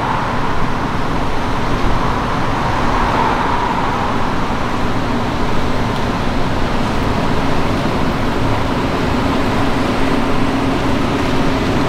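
Steady city street noise of road traffic, with a faint steady hum running under it.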